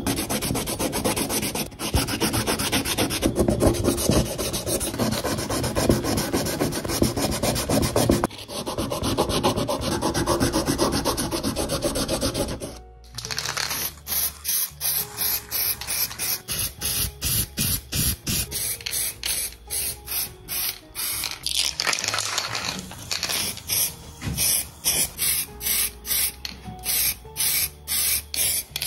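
Abrasive cloth rubbed by hand over a diecast metal body part, a steady scratchy sanding. About halfway through it stops, and an aerosol spray can then hisses in short bursts about twice a second as the parts are painted grey.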